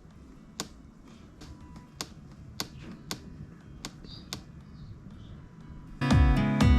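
A run of sharp, separate clicks, roughly two a second: the clicking noise a Nissan X-Trail (T32) makes on cold days. Acoustic guitar music comes in loudly near the end.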